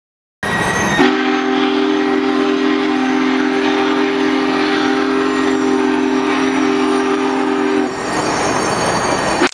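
A train horn sounding one long, steady multi-note chord of about seven seconds, over the rumble and clatter of Union Pacific passenger cars rolling past on the rails.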